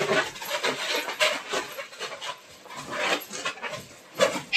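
Children swinging in a cloth swing with a bunch of balloons: irregular rustling and rubbing of the balloons and cloth, mixed with the children's breathy, panting sounds.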